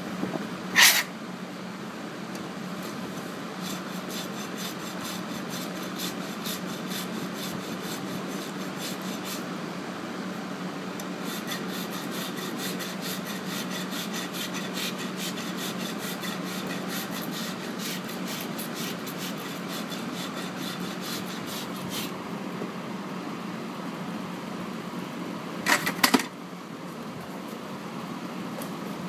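A farrier's hoof rasp filing a Belgian draft horse's hoof in a long steady run of strokes, about two or three a second. A sharp metallic clank about a second in and a few more near the end.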